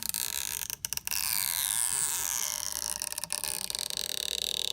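Stretchy adhesive pull strip being drawn out from under an iPhone 6s battery, giving a continuous creaking, rasping noise that falls in pitch in streaks and breaks off briefly twice about a second in.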